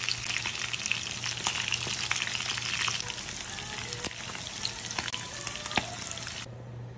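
Pork belly pieces frying in hot oil in a frying pan: a steady sizzle with frequent crackles and pops of spattering fat.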